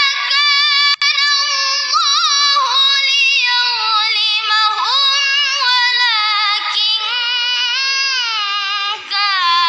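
A boy's high voice reciting the Quran in the melodic tilawah style: long held notes decorated with rapid trills and sliding turns, with a short breath about nine seconds in.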